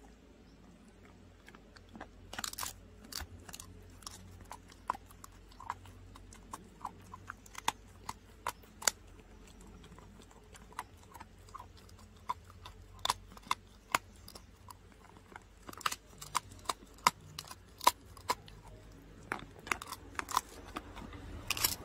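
A dog chewing a dried pig ear: irregular sharp crunches and cracks, starting about two seconds in and coming in clusters.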